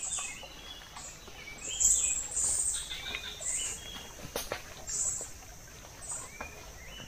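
Forest birds calling: short high chirps repeated about every second, some rising and falling. A few light clicks of sticks being handled in leaf litter.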